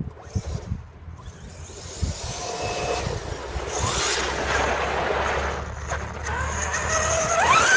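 Radio-controlled buggy's motor whining and rising in pitch as it speeds up, with a hiss from its tyres over the snow that builds about two seconds in; a rising whine near the end is the loudest part.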